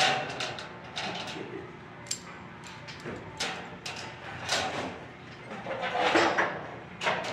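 Light-gauge 3-5/8-inch steel studs and track being handled and fitted overhead: irregular sharp metal knocks and clicks with sliding scrapes between them.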